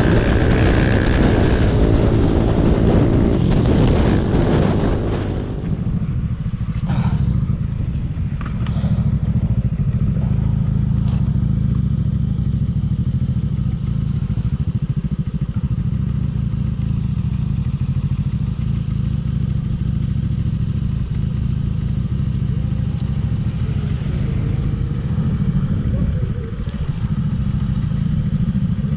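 Motorcycle engine running at a steady cruising pace during a ride. Wind rushes over the microphone for about the first five seconds, then it settles into a steady low engine drone.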